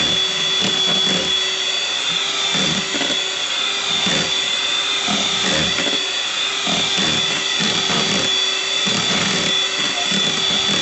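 Electric hand mixer running steadily with a high whine, its beaters churning through whipped cream and chocolate condensed milk in a plastic tub.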